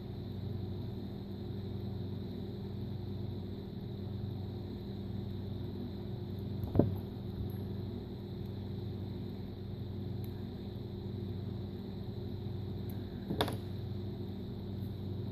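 Steady low electrical hum with two light clicks, one about seven seconds in and one near the end.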